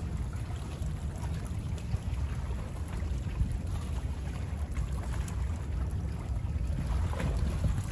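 Small bay waves lapping and splashing at the water's edge over a steady low rumble of wind on the microphone, with a slightly fuller splash near the end.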